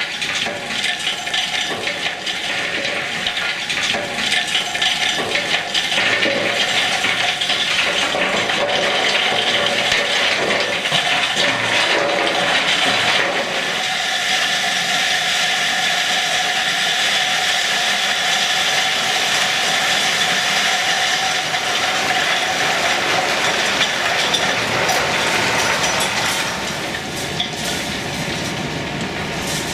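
Excavated rock spoil tipping out of a railway dump wagon through a steel grate, a long rushing, rattling pour of stone. In the first half many short clattering knocks stand out; in the middle the pour is a steady rush, and it eases near the end.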